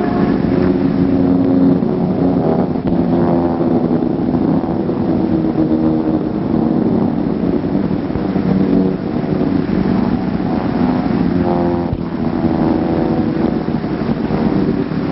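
Steady drone of several piston-engined propeller aircraft flying together, a rough engine hum whose pitch shifts slightly now and then.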